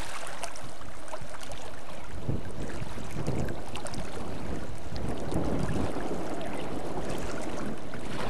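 Steady wind rumble on the microphone mixed with the rush of fast-flowing river water, swelling a little now and then.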